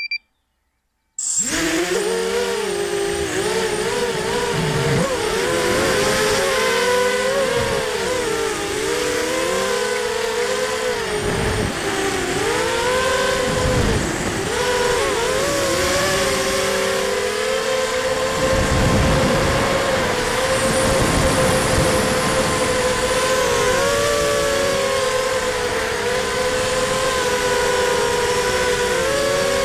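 A ZMR250 racing quadcopter's brushless motors and 5-inch propellers whining in flight, the pitch rising and falling constantly with the throttle, with wind buffeting the onboard microphone now and then. A short beep right at the start, then about a second of silence before the motors come in.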